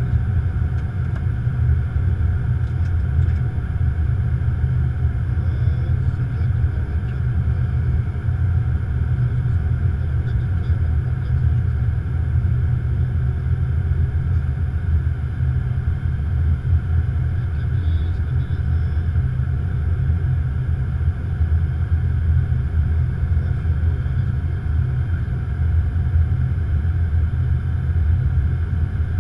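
Steady low rumble of airflow and engines inside an Airbus A330-200's flight deck on approach.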